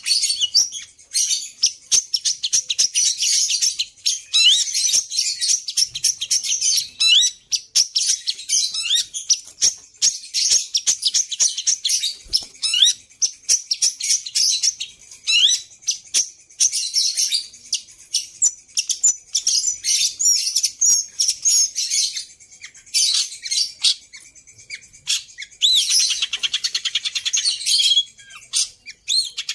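Caged long-tailed shrike (pentet) singing a rapid, nearly unbroken chattering song of high notes and short upward sweeps, filled with mimicked calls. It falls briefly silent a few times a little before the end, then comes back denser.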